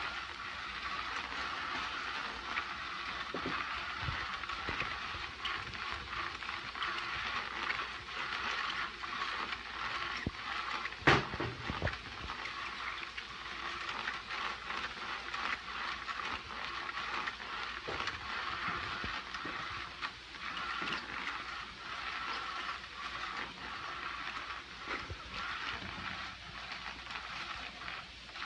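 Battery-powered motorised cat toy running: a small motor whirring steadily while its wand rustles and scratches under the fabric cover, with one sharp knock about eleven seconds in.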